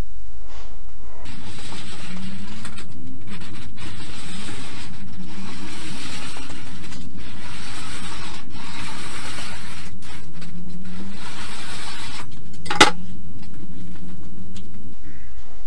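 Red hand roller bender rolled along the edge of a steel sheet, bending up a flange: a steady rolling, rasping noise with brief breaks that starts about a second in and stops near the end. There is one sharp metallic click a couple of seconds before it stops.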